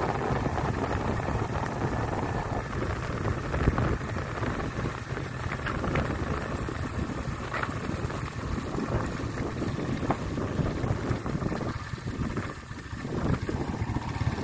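Wind rushing over the microphone of a moving motorbike, over the low rumble of its engine and tyres. The wind noise eases briefly near the end, then picks up again.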